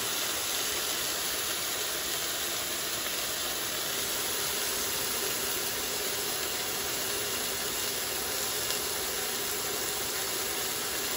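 Pork chops sizzling in oil in a hot cast iron skillet: a steady hiss.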